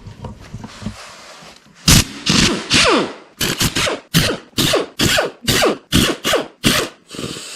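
Hand ratchet being swung back and forth on the rocker arm bolts of an LS V8, a rapid run of about a dozen short rasping strokes, two to three a second, starting about two seconds in.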